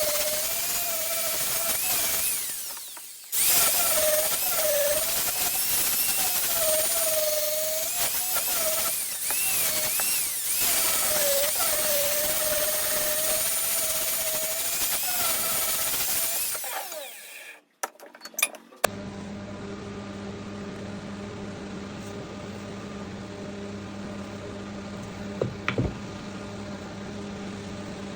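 A handheld power tool running against a wooden cricket bat, its high whine wavering and dipping as it is pressed into the work, with a short break a few seconds in. It stops after about seventeen seconds, and after a few clicks a quieter steady low hum continues.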